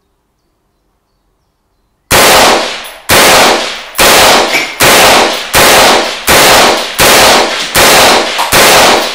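Savage A22 Magnum semi-automatic rifle in .22 WMR firing from its ten-round rotary magazine: nine shots about one a second, starting about two seconds in, each followed by a short echo.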